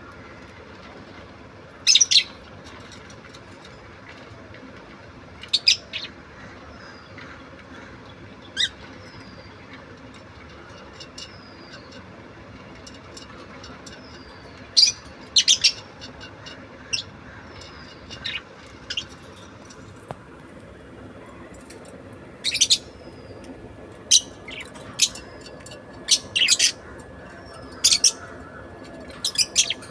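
Budgerigar giving short, sharp chirps and squawks, scattered at first and coming more often in the second half, with soft falling whistles in between.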